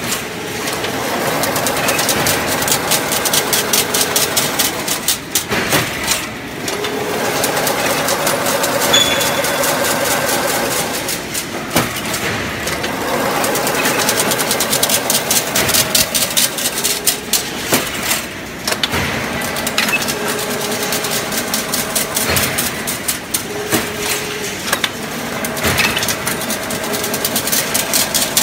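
Servo-driven chain link fence weaving machine running, with a fast, dense metallic clatter. A humming tone comes in for a few seconds and drops away again roughly every five seconds as the machine cycles.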